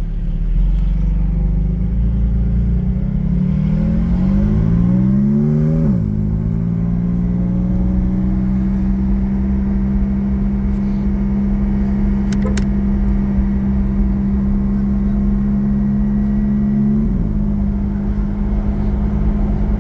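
2021 Porsche 718 Cayman GT4's 4.0-litre flat-six through Soul over-axle exhaust pipes with the exhaust valves held open, heard from the cabin with the windows down. It pulls away, rising in pitch for a few seconds before dropping sharply at an upshift about six seconds in, then runs steadily at light throttle until the pitch falls again at another shift near the end.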